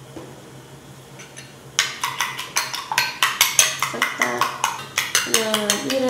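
Metal spoon beating eggs in a ceramic bowl: a quick run of clinking strokes, about five a second, starting about two seconds in and stopping near the end.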